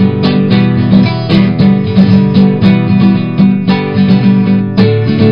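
Music: an acoustic guitar strumming chords in a steady rhythm.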